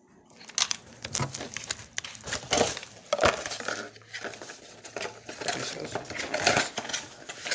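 Paper and cardboard packaging being handled: irregular rustling and crinkling with short scrapes and taps as the inserts are pulled out of the box.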